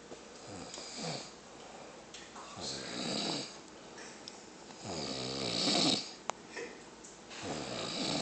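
Grizzly bear snoring: four deep, rattling snores, about one every two and a half seconds, the third the loudest.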